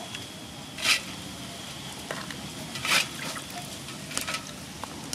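Wet live crabs being piled onto a plate: a few light clicks of shell against shell, and two short wet scraping sounds, one about a second in and one about three seconds in.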